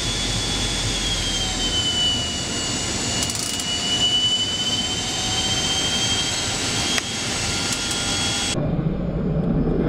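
Cockpit noise of a C-160 Transall in flight: the steady drone and high whine of its two Rolls-Royce Tyne turboprop engines, the whine dipping slightly in pitch and recovering. Near the end the high whine cuts off suddenly and a deeper rumble remains.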